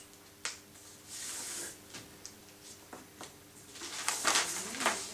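Stiff kraft paper handled on a table: a tap, and a short sliding swish as a fold is pressed flat by hand, then louder crinkling and rustling from about four seconds in as the folded sheet is lifted and opened out.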